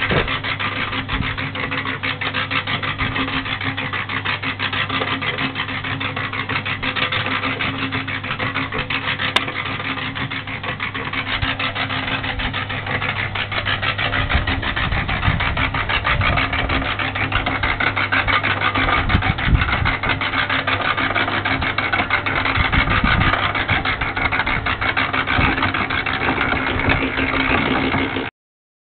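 Electric concrete mixer running: a steady motor hum under a fast, continuous rattle from the turning drum and its load, with occasional dull thumps in the second half.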